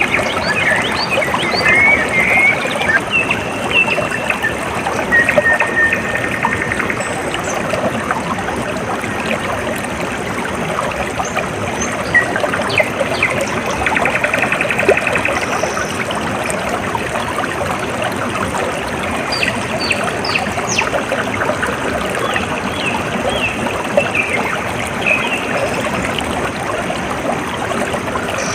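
Water trickling and babbling steadily, as in a small stream, with birds chirping and trilling on and off.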